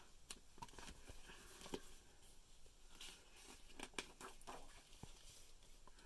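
Faint rustling and light taps of a picture book being handled and its page turned, a few scattered small clicks over near silence.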